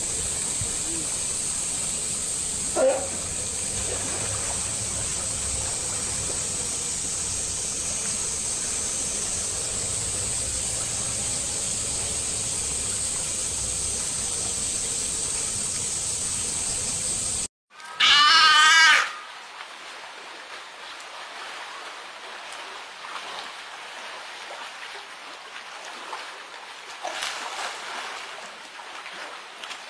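Steady rush and splash of pool water close to the surface, with one short call about three seconds in. Then a seal pup gives a loud, wavering bleat lasting about a second, followed by quieter water sounds and a few faint calls near the end.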